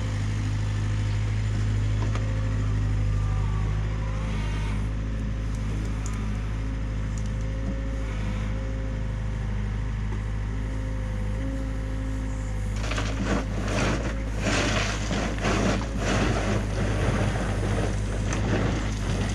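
Mini excavator's diesel engine running steadily; about two-thirds of the way in, a rough scraping and crunching of rock and soil starts and goes on to the end.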